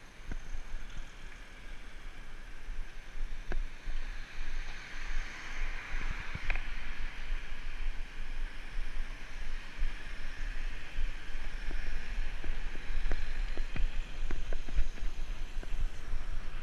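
Wind and road noise on a bicycle-mounted camera's microphone while riding: a steady rushing hiss over a low rumble, swelling for a couple of seconds about five seconds in, with scattered short knocks.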